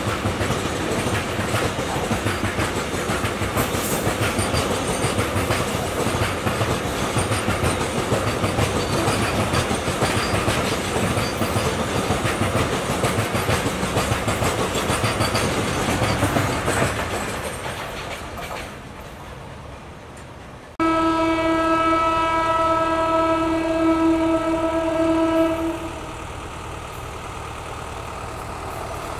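Container freight train wagons rolling past, with a steady rail rumble and wheel clatter that fades away about two-thirds of the way through. Then an approaching MEMU train sounds one long, steady horn blast of about five seconds.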